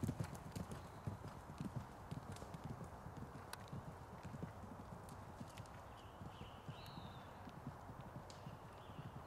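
Hoofbeats of a horse galloping on a dirt track, a quick run of dull thuds that fades over the first few seconds as the horse moves away.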